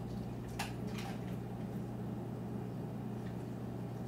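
Dry-erase marker strokes on a whiteboard, a few short faint squeaks about half a second to a second in, over a steady low hum.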